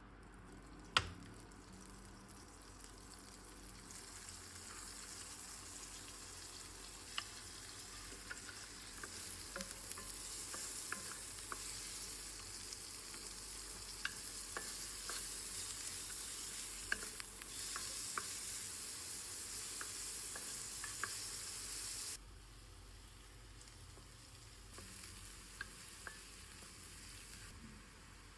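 Food sizzling in a frying pan, with small clicks and taps of a utensil stirring it. There is a sharp knock about a second in, and the sizzle drops away suddenly about 22 seconds in.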